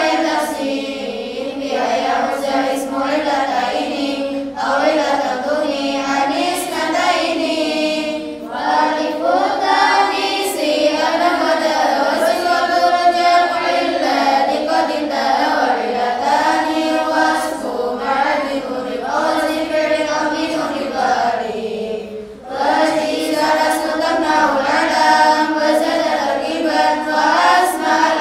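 A large group of girls chanting Arabic verse together in unison to a sung melody, lalaran-style memorised recitation. It runs on in phrase after phrase, with one short break for breath about three quarters of the way through.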